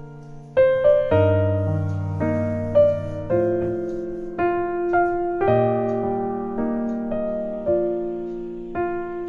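Background piano music: a slow melody of single notes, roughly one a second, over low sustained chords.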